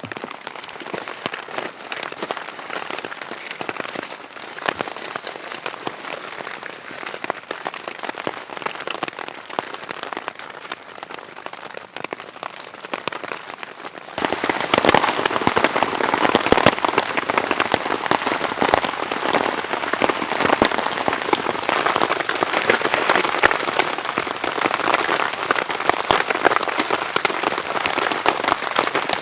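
Heavy rain falling, a dense stream of close drop hits; about halfway through it abruptly becomes louder and fuller.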